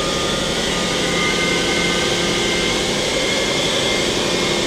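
Mori Seiki MT-2000SZ milling-head tool spindle running unloaded at about 2000 rpm, being stepped up toward 3000 rpm: a steady mechanical hum and whine, with a higher tone joining about a second in.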